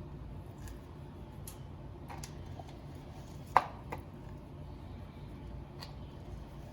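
A few light clinks and taps of a dish as a whole fish is turned over and seasoned by hand, the sharpest about three and a half seconds in, over a steady low hum.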